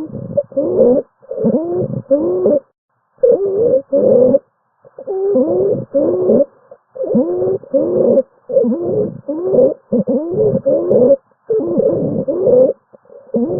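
Stridor: a high-pitched, crowing breath sound with each breath, the noisy sign of a narrowed upper airway. The breaths come quickly and evenly, about one and a half to two a second, each with a gliding pitch, with short pauses around three and five seconds in.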